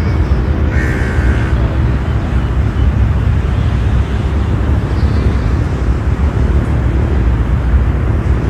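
Outdoor ambient noise dominated by a loud, steady low rumble, with a brief high warbling sound about a second in.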